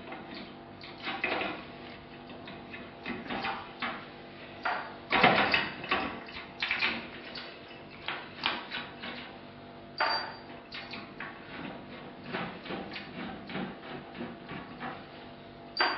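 Hands unplugging power and data cable connectors from hard drives in a steel desktop PC case: irregular clicks, knocks and rattles against the sheet-metal drive bay, loudest about five seconds in.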